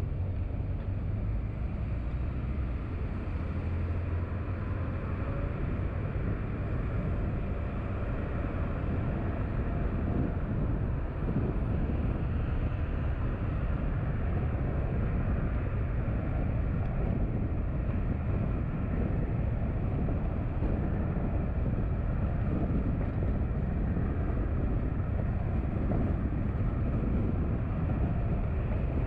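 Steady low rumble of a car driving along a road. It gets a little louder about eleven seconds in.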